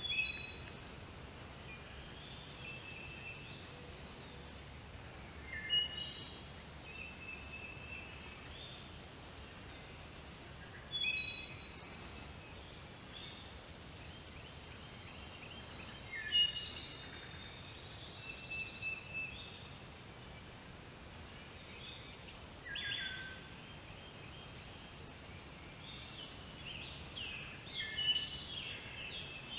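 Songbirds singing in woodland: short, chirpy phrases repeated about every five to six seconds over a faint steady background hush.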